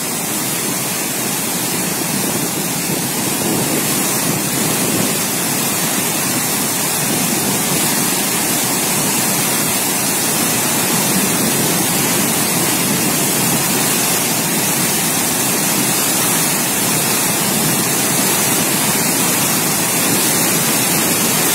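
Water pumped by large lift-irrigation pumps surging out of wide delivery outlets into a canal: a steady, even rush of churning water.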